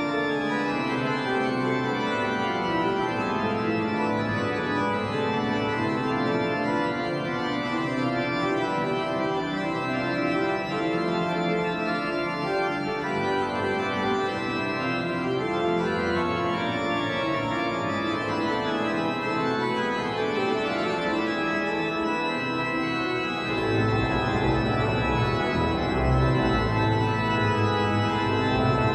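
Pipe organ playing, several lines of notes moving at once. About three-quarters of the way through, a deep pedal bass comes in and the sound grows louder.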